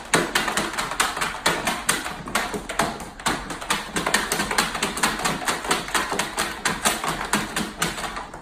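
Rapid, steady tapping or clicking, about five or six taps a second, that fades out near the end.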